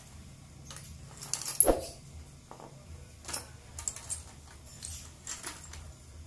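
Light metallic clinks and rattles of small metal parts and tools being handled and set down, a few scattered short sounds with the sharpest about a second and a half in.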